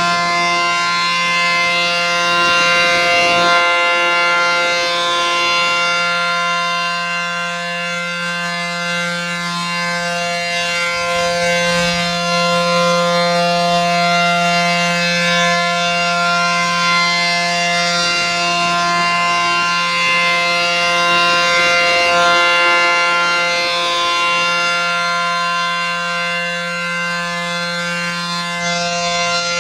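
ACA P-10 outdoor warning siren sounding its steady Alert signal, a tornado warning: one continuous tone held at a constant pitch, swelling and easing slightly in loudness.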